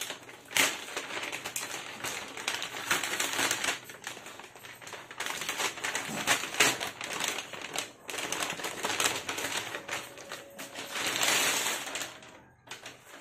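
Brown paper packaging being opened and handled by hand: a continuous run of crinkling and rustling, with sharp rips and crackles.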